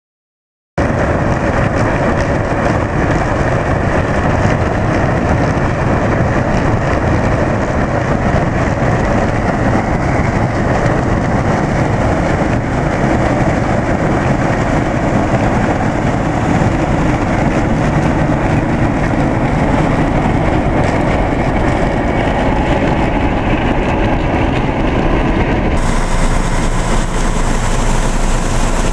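Claas Lexion 460 combine harvester running steadily under load as it cuts and threshes sunflowers: a loud, even machine noise that starts abruptly about a second in. Near the end the sound shifts to a brighter hiss as the unloading auger pours sunflower seed into a trailer.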